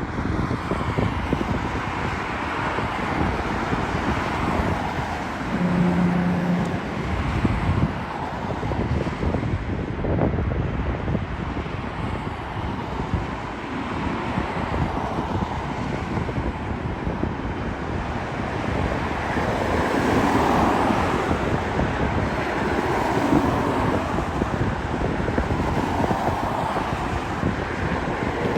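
Steady outdoor rumble of airport jet engines and road traffic, with wind buffeting the microphone. A short low hum about six seconds in.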